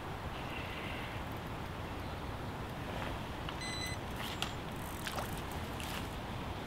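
Steady outdoor noise of wind on the microphone, with a few faint clicks in the second half and a short high beep about three and a half seconds in.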